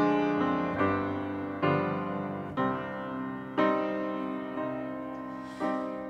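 Grand piano playing a slow introduction. Chords are struck about once a second and left to ring and fade, with one longer held chord near the end.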